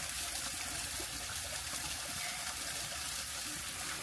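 Steady rush of shallow river water flowing.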